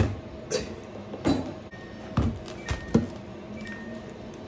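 Hard plastic refrigerator organizer bins knocking and clattering as they are yanked at, with five sharp knocks spread over three seconds, as a linked set that will not come apart is forced. Faint short refrigerator alarm beeps sound between the knocks.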